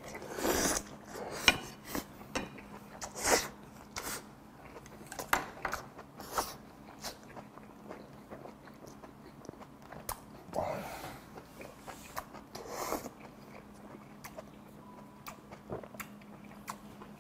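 A man chewing a mouthful of braised pork back rib with kimchi and rice, close-miked on a lapel mic: wet mouth sounds, smacks and clicks at irregular moments, busiest in the first few seconds and again about ten seconds in. A faint steady hum runs beneath.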